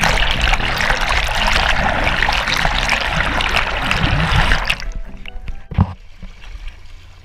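Water rushing and splashing over a GoPro housing as it skims along a sailing dinghy's hull at the waterline and dips under, with music playing beneath. The rush drops away suddenly about five seconds in, followed by a single knock.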